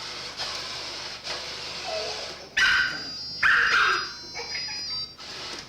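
A dog barking twice, loudly, about two and a half and three and a half seconds in, over a steady background hiss.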